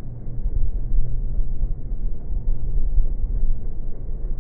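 Low, steady rumble of a formation of jet aircraft flying overhead during an aerobatic display, trailing smoke as they climb.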